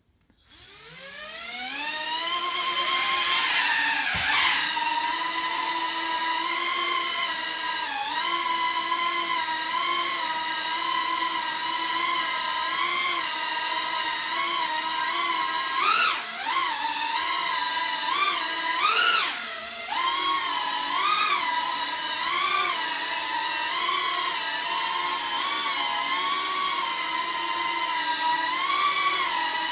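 Small 130 mm FPV quadcopter's motors and propellers spinning up with a rising whine about half a second in, then a steady high whine while it hovers. The pitch wavers with constant throttle corrections and surges sharply twice past halfway.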